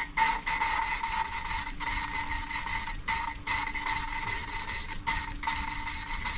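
Engine valve being hand-lapped into its seat with a lapping stick and carborundum paste: a steady gritty rasping as the stick is worked back and forth, broken by a few brief pauses. The abrasive is cutting into the valve seat.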